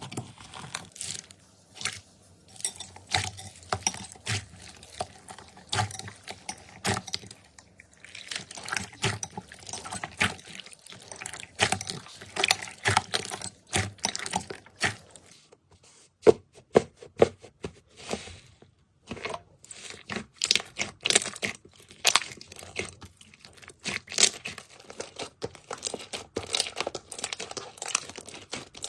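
Slime being squeezed, pressed and stretched by hand close to the microphone: dense runs of sticky clicks and small pops, broken by a few brief pauses.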